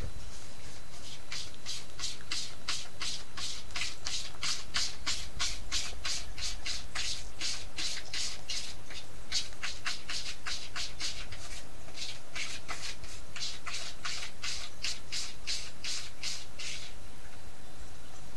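Kitten sucking on a person's finger, in a steady rhythm of about four sucks a second, with a short break about twelve seconds in, stopping near the end.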